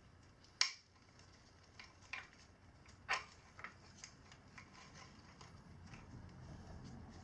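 Sharp metallic clicks and clinks of a 420 roller chain's links knocking together as the chain is worked through by hand, a handful of separate clicks a second or so apart.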